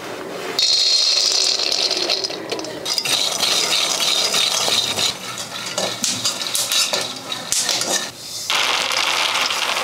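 Raw peanuts poured into a steel kadai, rattling against the metal, then stirred with a metal spatula, the nuts clattering and scraping on the pan as they roast.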